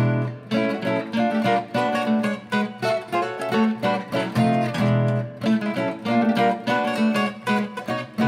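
Duet of two acoustic archtop guitars, a 1936 Epiphone De Luxe and a 2004 Sumi archtop, playing swing-era jazz: fast picked single notes and strummed chords over a steady beat.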